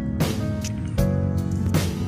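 Background music: sustained tones over a regular beat of drum hits.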